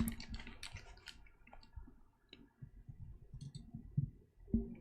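Scattered clicks from a computer mouse and keyboard: a quick run of them at first, then a few sparse ones.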